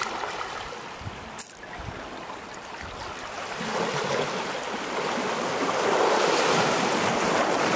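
Small sea waves breaking and washing in over a beach of pebbles and slate stones. The rush of the surf swells about halfway through and is loudest near the end as a larger wave breaks.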